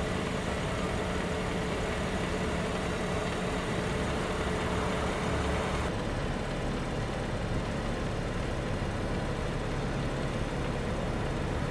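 Steady low hum of an idling vehicle engine over even outdoor background noise, with no sudden events; the sound turns slightly duller about six seconds in.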